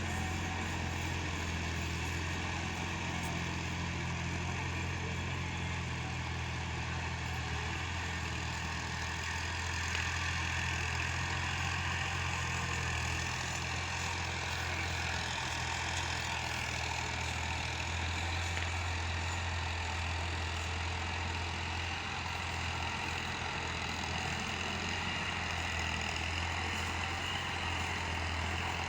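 Belarus tractor's diesel engine idling steadily.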